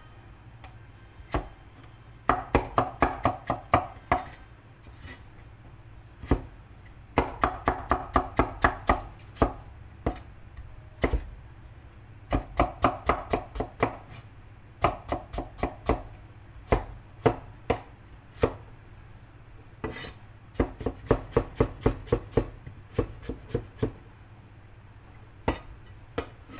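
Knife chopping on a cutting board in quick runs of about five strokes a second, each run lasting a second or two, with short pauses between runs.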